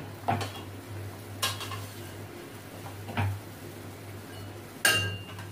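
Metal ladle stirring potatoes through curry in a steel wok, scraping and knocking against the pan with four sharp clinks, the loudest near the end. A steady low hum runs underneath.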